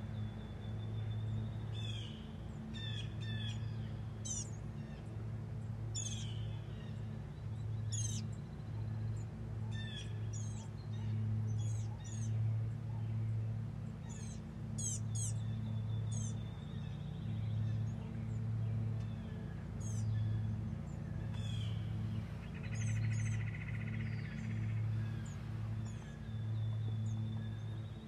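Small songbirds chirping and calling throughout, with short quick notes and a few held high notes. Under them a low hum swells and fades every second or two and is the loudest sound.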